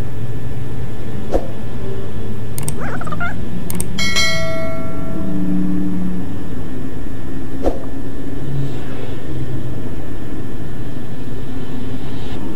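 A subscribe-button animation's bell sound effect: one bell chime about four seconds in, ringing out for about a second, with a few sharp clicks before and after it. Under it runs a steady, loud low drone.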